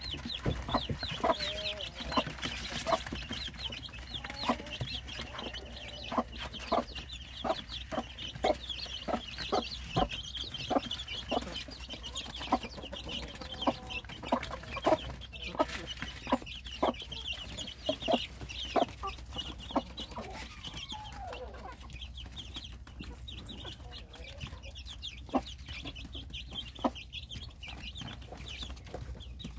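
Korean native chicken chicks peeping steadily in high chirps, with a few low clucks from the mother hen and many sharp taps of beaks pecking at cabbage and grain feed.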